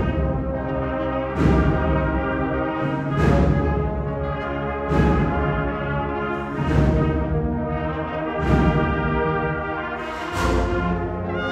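Agrupación musical (cornet, brass and percussion band) playing sustained full brass chords. Loud percussion hits fall on a slow, even beat about every 1.8 seconds.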